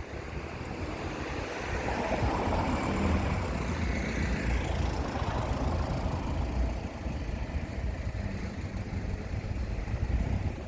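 Street traffic: a vehicle passes, loudest a few seconds in, over a steady low rumble.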